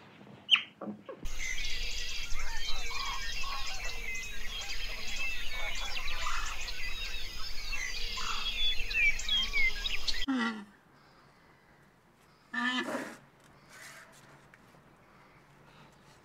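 Many birds chirping at once, a dense overlapping chorus that cuts off abruptly about ten seconds in. A single short pitched animal call follows a few seconds later.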